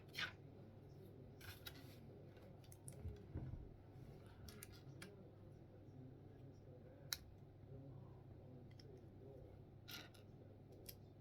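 Faint, scattered clicks and light plastic rattles of Lego pieces being handled and snapped together, with one sharper click about seven seconds in.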